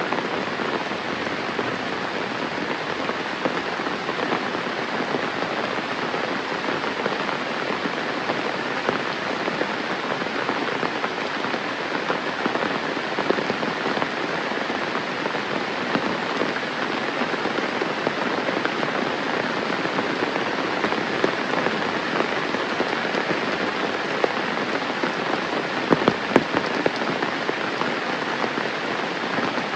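Steady rain falling and pattering on surfaces, with a few louder, sharp drops or taps near the end.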